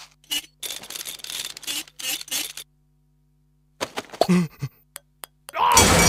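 Cartoon sound effects: a run of quick scratchy bursts of sand being dug out of a litter tray, then a pause. After that comes a short voice-like sound falling in pitch, a few clicks, and a loud cry near the end.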